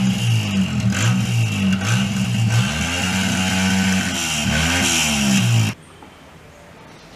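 Motorcycle engine running and being revved, its pitch rising and falling, then cut off abruptly about three-quarters of the way through, leaving only a low hum.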